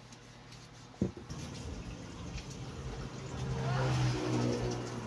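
Cooking oil poured from a bottle into a pan of raw fish and vegetables, the pouring building up over the last second and a half, with a sharp click about a second in, over a steady low hum.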